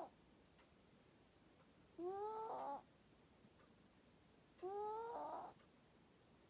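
Snoring in sleep: two pitched snores about two and a half seconds apart, each under a second long and rising in pitch, plus the tail end of another right at the start.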